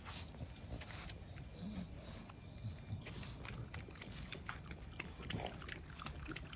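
Bully puppies grunting and snuffling as they play. Near the end come quick wet clicks as they lap water from a steel bowl.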